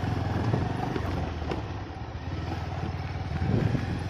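Motorcycle engine running steadily at an even, low speed.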